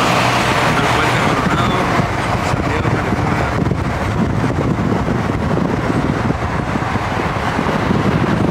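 Vehicle driving on a rain-soaked road, heard from inside the cab: a steady hiss of tyres on wet pavement over the engine's rumble, a little louder in the first two seconds.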